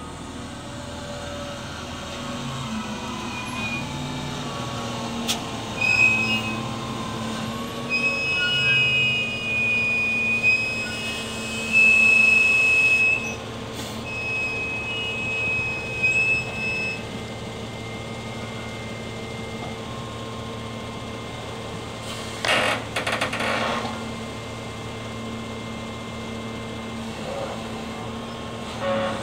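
Wheel loader's diesel engine running steadily as it lifts big bags with a jib attachment. High-pitched squeals come and go in the first half, and there are two short noisy bursts about three quarters of the way through.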